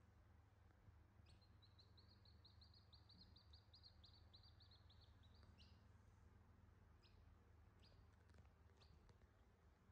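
Newborn chicks peeping faintly: a quick run of high peeps for about four seconds, then single peeps about once a second, over a low steady hum.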